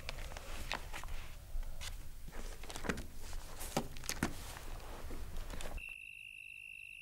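Scattered footsteps and light knocks. About six seconds in, the room noise drops away and a steady high-pitched mosquito whine begins.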